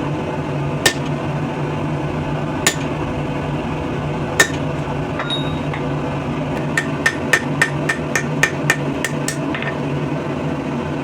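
Hand hammer striking hot steel on an anvil while forging a throwing knife from an old wrench, with a ring after each blow. Three separate blows come first, then a quick run of about a dozen lighter strikes at roughly four a second. A steady low hum runs underneath.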